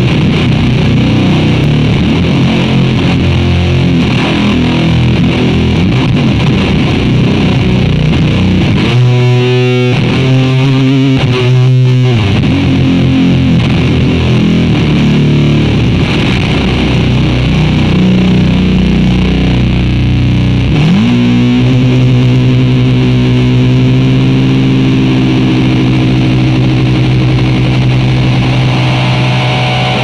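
Heavily distorted electric guitar played loud through a DIY clone of the EarthQuaker Devices Life distortion pedal, slow heavy chords ringing out. There is a short choppy stretch about ten seconds in. About two-thirds of the way through a note slides up into a long sustained chord.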